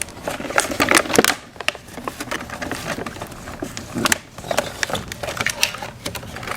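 Irregular clicks, taps and rustling as a toy playset's box and packaging are opened and the plastic pieces handled.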